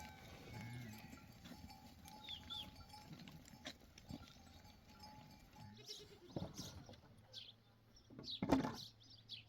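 Sheep bleating faintly in a flock, with one louder bleat near the end.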